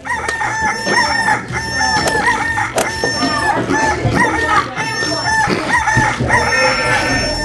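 Fowl clucking: a rapid, unbroken run of short pitched calls, several a second, over a low steady hum.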